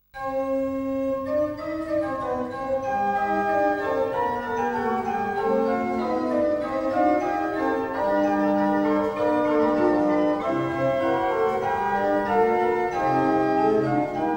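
Organ music: slow, sustained chords whose held notes change every second or so, starting suddenly out of silence.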